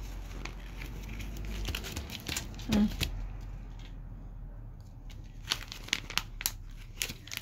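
Paper stickers being peeled off their backing sheet and handled against workbook pages: crinkling and rustling of paper with scattered small clicks and taps, and one brief louder noise about three seconds in.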